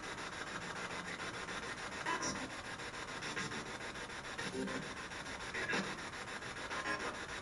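Spirit box radio scanning rapidly through stations: a steady static hiss chopped into a fast, even stutter, with brief fragments of broadcast voices breaking through a few times. One fragment about six seconds in is heard by the investigators as the name "Eric", answering their request.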